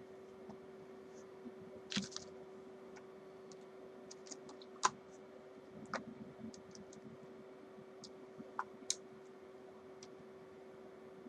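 Scattered small clicks and taps of screws and a screwdriver being handled while a guitar pickguard is screwed on, the sharpest about five seconds in, over a faint steady hum.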